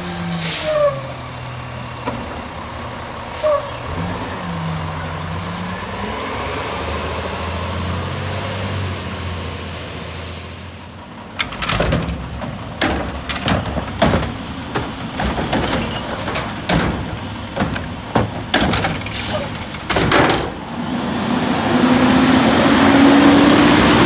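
Garbage truck's diesel engine running, with a short air-brake hiss near the start. About halfway through comes a run of irregular bangs and clanks, and near the end the engine revs up and gets louder.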